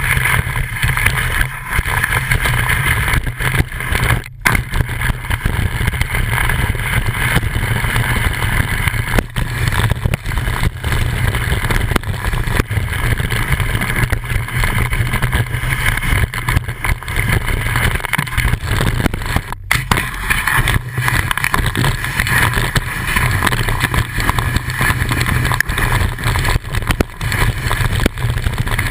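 Wind buffeting the microphone of a board-mounted action camera, mixed with the hiss and scrape of a snowboard sliding over snow. The sound cuts out for an instant twice.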